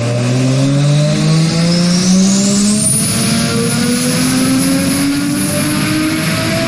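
Turbocharged Nissan RB25DET straight-six engine accelerating hard under boost, its note rising steadily. A high turbo whistle climbs over the first few seconds and then holds at a steady pitch.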